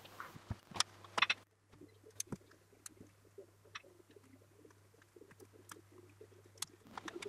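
LEGO plastic bricks clicking as pieces are handled and pressed together by hand: scattered short, sharp clicks, a few together about a second in and again near the end.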